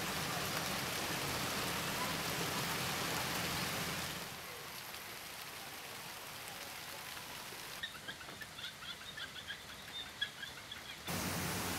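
Steady rain falling on forest leaves, its hiss dropping softer about four seconds in. Near the end a bird chirps rapidly for a few seconds, then the rain comes back louder.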